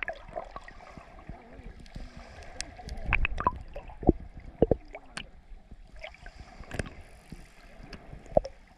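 Muffled underwater sound picked up by a camera just below the surface: water sloshing and gurgling around it, with irregular sharp clicks and knocks.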